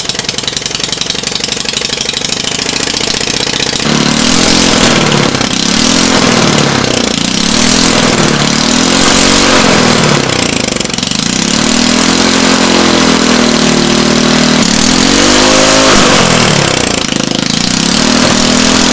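Briggs & Stratton single-cylinder small engine running on a nitromethane fuel blend, with its ignition timing set well advanced. It runs steadily at first, then from about four seconds in it is revved up and down over and over, its pitch rising and falling with each rev.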